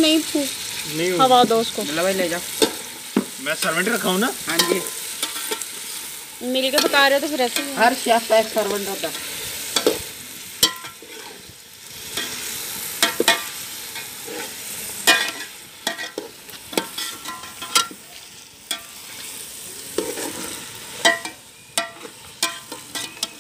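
A metal spoon stirring green peas into frying onion, tomato and spices in an aluminium pot over a wood fire. It clinks and scrapes against the pot many times, mostly from about ten seconds in, over the steady sizzle of the frying.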